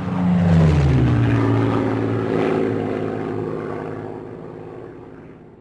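Propeller aircraft flying past: the engine note drops in pitch as it passes, about a second in, then fades steadily as it flies away.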